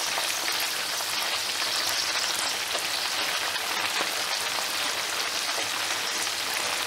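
Marinated chicken pieces and thick green chillies deep-frying in hot oil in a karahi: a steady sizzle thick with tiny crackling pops.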